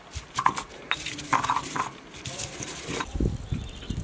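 Marble pestle knocking and grinding against a marble mortar while crushing garlic and parsley. There are sharp clicks in the first two seconds, then duller thumps near the end.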